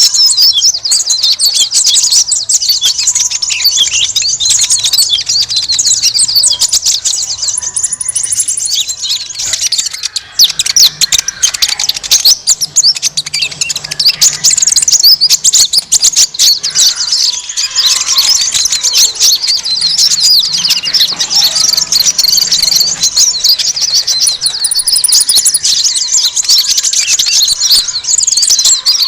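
Mixed chorus of many small birds chirping and twittering together, a dense, unbroken high-pitched chatter: a bird-lure recording of noisy small songbirds.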